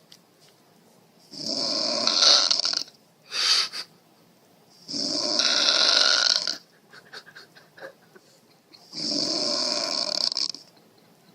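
A person snoring loudly: three long snores, each about a second and a half, roughly four seconds apart, with a short extra burst after the first.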